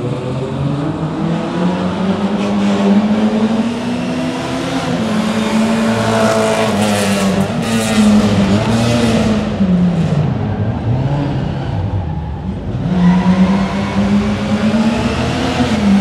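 Rally car engine running at high revs, its pitch rising and falling through gear changes and lifts; about ten seconds in the revs drop away for a couple of seconds, then climb hard again.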